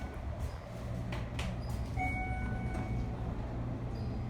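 Steady low electrical hum, with a short electronic beep tone held for under a second about two seconds in and a few light clicks just before it.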